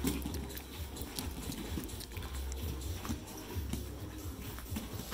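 Grapplers rolling on gym mats: gi cloth scuffing and bodies shifting against the mat, with scattered small taps and knocks.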